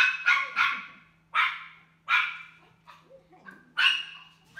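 Dog barking: three quick barks in a row, then single barks about a second or so apart.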